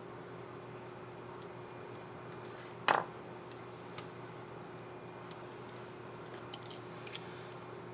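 Small plastic clicks from a laptop keycap and its scissor mechanism being handled on the keyboard. There is one sharp click about three seconds in and a few faint ticks after it, over a steady low hum and hiss.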